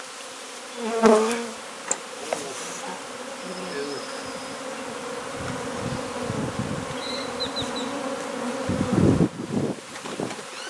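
Steady buzzing hum of a honey bee colony that has been opened up during a hive cut-out. A brief louder sound comes about a second in, and a few dull knocks near the end.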